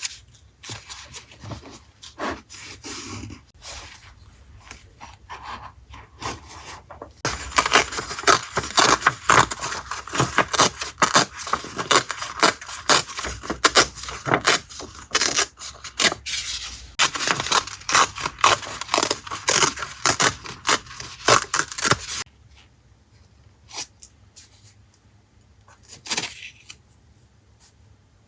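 Paper being scraped and rubbed in quick, dense strokes during collage work. The strokes start about seven seconds in and stop about 22 seconds in, with scattered quieter handling clicks before and after.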